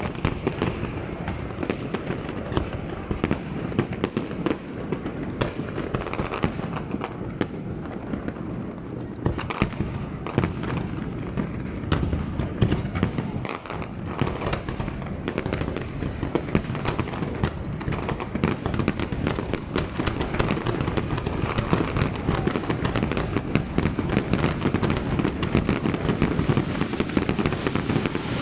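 Fireworks display: a dense, continuous barrage of crackling and popping from many shells and fountain effects firing at once, growing busier in the second half.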